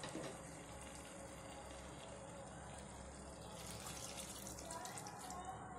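Water poured from a small cup into a pot of thick vegetable curry, a faint splashing pour heard mainly from about four seconds in.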